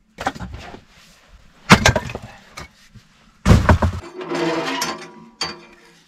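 Firewood being split with an axe: three hard blows into an upright log about a second and a half apart, the wood cracking and splintering apart for about a second after the third, then a lighter knock near the end.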